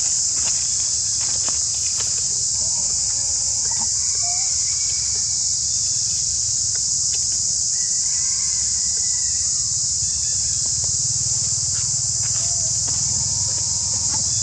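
A steady, high-pitched insect chorus drones without a break, over a low background rumble, with a few faint short calls in the middle range now and then.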